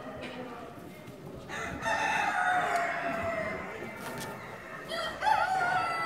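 Roosters crowing: a long crow about two seconds in and a shorter one near the end, over a hubbub of voices.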